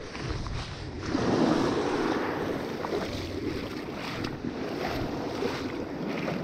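Small waves washing onto the beach with wind on the microphone, the rushing noise swelling suddenly about a second in as a beachcasting rod is swung through a cast.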